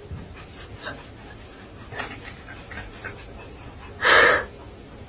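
Dog panting softly, with one louder short breathy burst about four seconds in.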